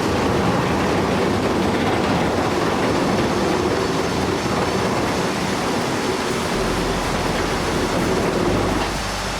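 Heavy machinery running and moving, a steady loud mechanical rumble and clatter that eases a little near the end.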